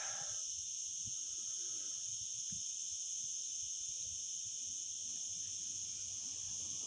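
Steady, high-pitched, unbroken insect chorus buzzing without a pause, with a few faint low thuds beneath it.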